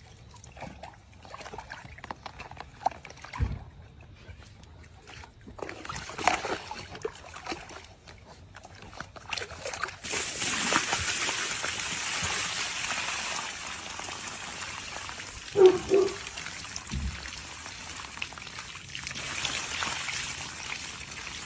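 Water from a garden hose running into a plastic tub, with a puppy stepping and splashing in it. Sporadic small splashes at first, then from about ten seconds in a steady, louder rush of water. One short loud vocal sound rings out a few seconds later.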